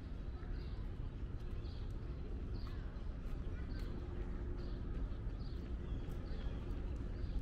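Footsteps on a paved park path, a soft tap about once a second, over a steady low rumble of outdoor background noise.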